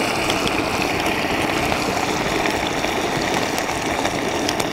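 Floured trout pieces frying in hot oil in a pan over a wood fire: a steady sizzle with a few faint pops.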